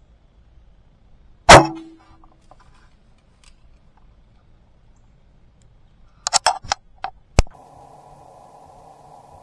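A bow shot: one sharp, loud crack about a second and a half in, with a brief ringing tone after it. A quick run of clicks and knocks follows later, then a steady hum near the end.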